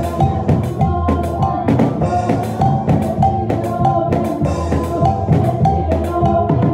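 Music with a drum kit keeping a steady beat over sustained bass and pitched instrument notes.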